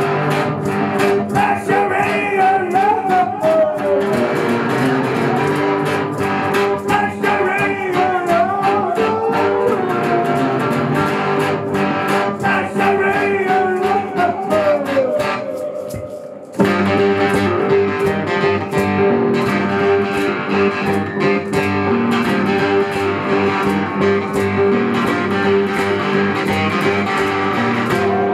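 Live blues-rock played on acoustic and electric guitars. A wavering lead line rides over the guitars for the first half. About sixteen seconds in the music drops out for a moment, then the guitars come back in together with strummed chords.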